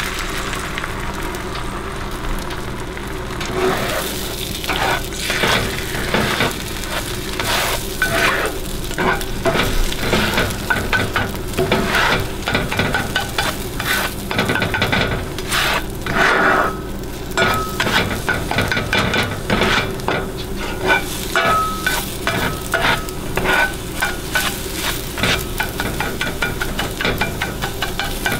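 Beaten eggs sizzling in a hot cast-iron skillet, then a spatula scraping and stirring them across the pan: irregular scrapes several times a second over a steady sizzle, starting about four seconds in.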